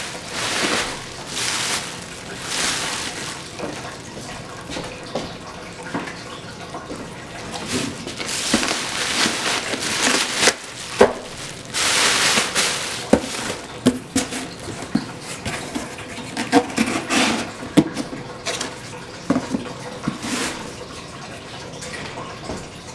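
Foil bubble-insulated liner rustling and crinkling as it is handled and folded inside a cardboard box, in repeated bursts of crackle, with a few sharp knocks against the cardboard.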